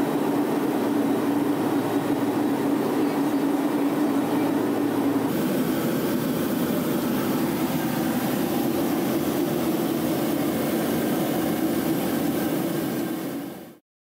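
Steady cabin drone of a twin turboprop's engines and propellers heard from the cockpit, with a strong even hum. The sound changes slightly about five seconds in, then fades quickly and cuts off near the end.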